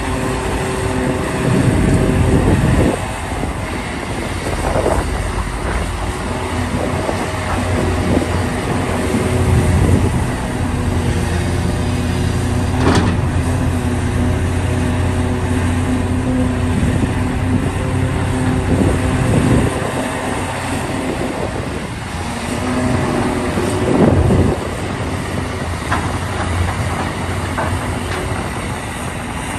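Large hydraulic excavator working: its diesel engine runs steadily, swelling and easing as it takes load, with occasional metallic knocks, the sharpest about thirteen seconds in.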